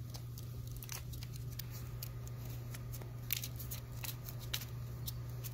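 Green masking tape being handled by hand: scattered short crackles and rips as strips are pulled from the roll, torn off and pressed down with the fingers, over a steady low hum.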